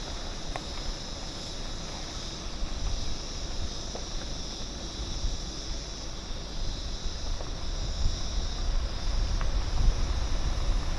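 A steady, high insect chorus from the surrounding bush, with an uneven low rumble underneath.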